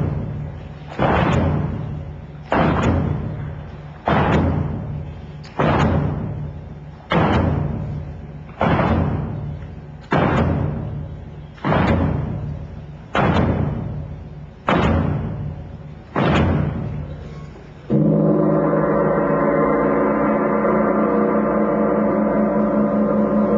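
Recorded stage music: a deep bell tolls slowly, about every second and a half, each stroke ringing out and fading. At about eighteen seconds the tolling stops and a sustained, full chord takes over.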